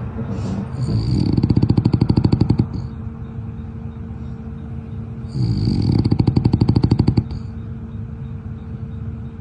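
Young French bulldog snoring in its sleep: two long snores, one starting about a second in and the next about five seconds in, each a rapid flutter of about ten beats a second.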